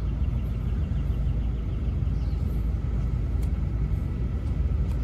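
Steady low rumble with no distinct event standing out.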